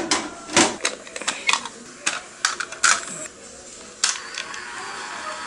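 Plastic clicks and clacks of a VHS-C cassette being snapped into its VHS-C cassette adapter, then about four seconds in a click and the steady whir of a small motor starting up.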